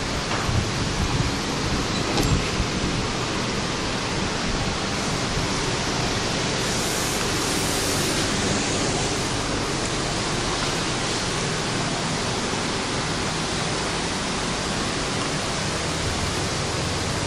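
Steady, even hiss with no clear pattern, growing a little brighter for a couple of seconds about seven seconds in.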